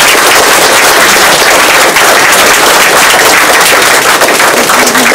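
Audience applauding loudly: a dense, steady clatter of many hands clapping.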